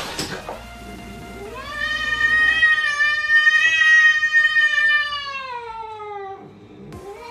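Cat yowling: one long drawn-out call of about five seconds that rises, holds, then slides down in pitch, followed near the end by the start of a second call.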